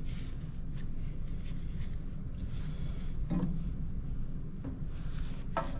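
Quiet handling noises: a cloth rubbing over a metal grinder burr holder as it is cleaned of coffee buildup, and a few light clicks of metal parts and tools on a cloth-covered bench, over a steady low hum.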